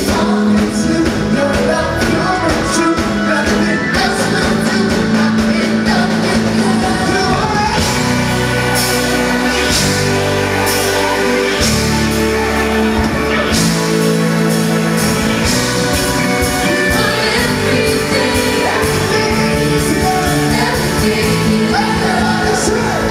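Live gospel band playing loud: drums with cymbal crashes, electric guitars, bass and organ under amplified singing.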